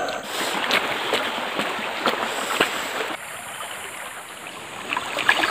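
Water sloshing and splashing in a small stream, with scattered light knocks; it turns quieter about three seconds in.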